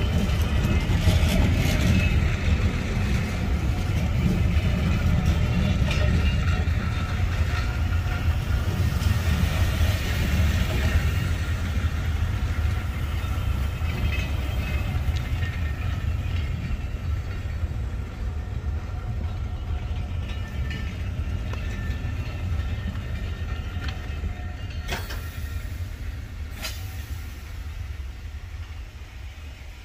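Rake of West Coast Railways passenger coaches rolling past at close range: a steady low rumble of wheels on rail that fades as the last coach goes by. Two sharp knocks sound near the end.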